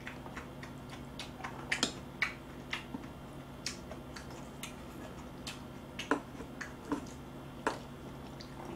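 Close-up eating sounds: irregular sharp clicks and smacks of chewing braised monkfish and bean sprouts, mixed with chopsticks picking at the food, over a faint steady low hum.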